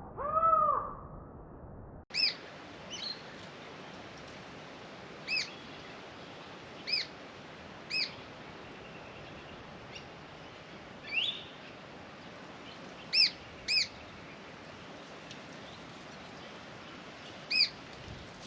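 Birds calling over a steady background hiss: one lower, arched call in the first second, then short, clear high chirps every one to four seconds, with one rising note about eleven seconds in.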